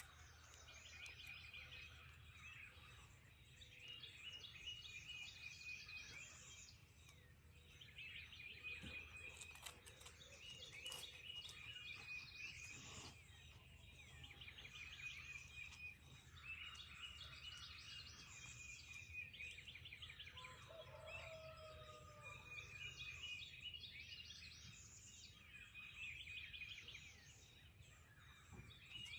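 Faint dawn chorus of songbirds: short trilled and chirping song phrases repeating every few seconds, with a lower call from another bird about two-thirds of the way through, over a steady low background hum.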